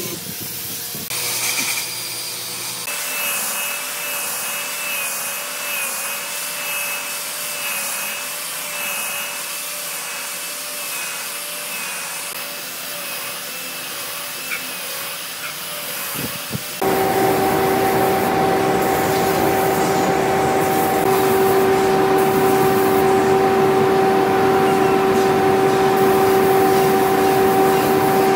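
Electric power tools working wood: first a smaller tool with a faint, slightly wavering whine over a rough grinding hiss, then about two-thirds of the way in a sudden switch to a louder machine with a steady hum.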